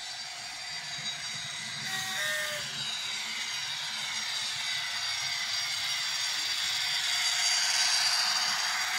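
Bachmann Class 57 model locomotive's DCC sound decoder playing diesel engine sound through its small onboard speaker, mixed with the rattle of the model's wheels on the track. The sound grows louder as the train comes closest near the end. About two seconds in, a short two-note horn sounds, high then low.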